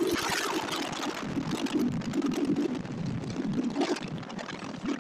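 Wind buffeting the microphone on a moving motorbike, an uneven rushing noise over faint road noise.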